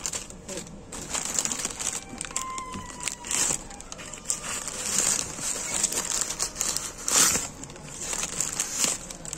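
Plastic packaging crinkling and rustling as a torn plastic mailer bag and a clear plastic knife sleeve are handled and pulled apart, in irregular bursts, with a brief squeak of plastic rubbing about two seconds in.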